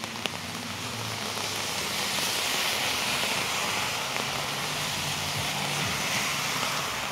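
Heavy rain falling steadily, with a car passing on the wet street: tyre hiss on the wet road swells through the middle and fades, with a low engine hum under it.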